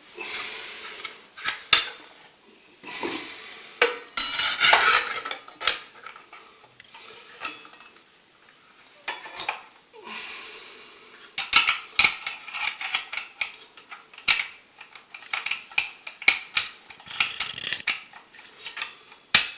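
Irregular metal clinks, clicks and rattles of a circular saw and its blade being handled while the blade is fitted, quieter for a few seconds in the middle and busier near the end.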